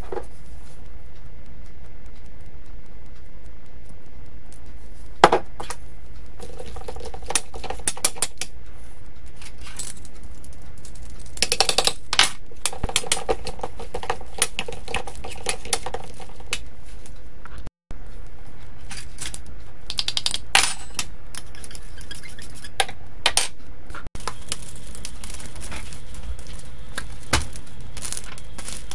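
A metal fork clinking and scraping against a stainless steel bowl in irregular bursts as raw chicken is mixed with marinade, the bowl ringing faintly during the busiest stretch. A steady low hum runs underneath.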